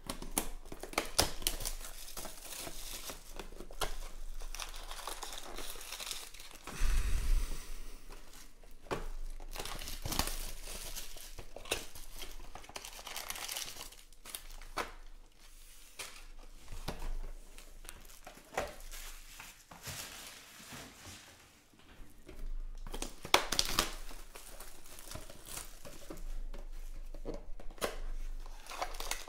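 Clear plastic shrink wrap being torn off trading-card boxes and crumpled in the hand, crinkling on and off, along with foil card packs rustling as they are pulled out of an opened box. A low thump about seven seconds in.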